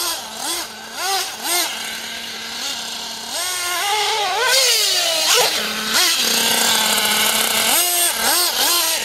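Nitro RC buggy engine revving up and falling back again and again, with one longer climb to a high pitch about four seconds in.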